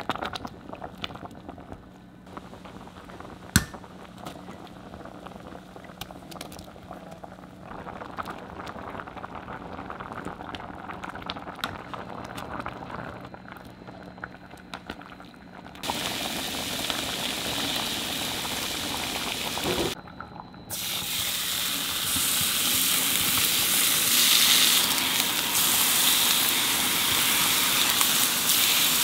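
A pot of cheonggukjang stew bubbling quietly on the stove, with a wooden spoon stirring and knocking in the pot. About sixteen seconds in it comes up to a loud, steady boil, and after a brief break thin slices of meat sizzle loudly as they sear in a frying pan.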